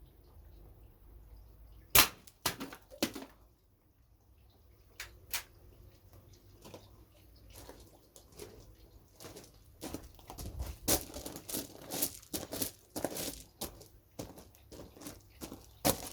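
A single sharp shot from an SMK CO2 air rifle about two seconds in, followed by a few lighter clicks. In the second half comes a run of irregular clicks and knocks.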